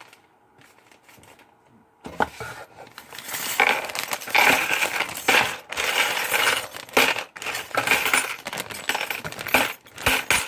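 Small metal Meccano parts (screws, nuts and pieces) clinking and rattling against each other as they are tipped out and handled, a dense run of clinks that starts about two seconds in and keeps going until near the end.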